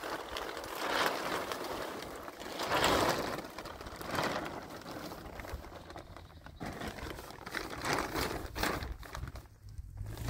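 Clear plastic sheeting rustling and crinkling in a series of swells as it is pulled and tucked over a dome tent.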